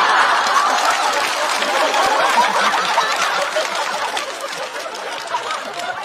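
Studio audience laughing and clapping, loudest at the start and slowly dying away.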